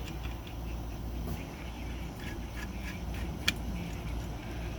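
Small screwdriver working on the screws of a typewriter platen assembly cover: a few faint metal ticks and one sharper click about three and a half seconds in, over a steady low hum.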